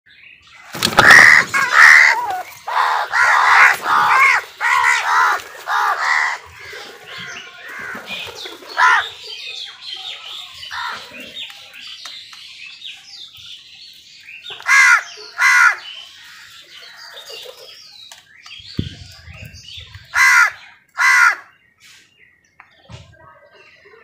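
House crows cawing: a quick run of loud caws over the first six seconds, then quieter scattered calls, with two pairs of loud caws about halfway through and again near the end.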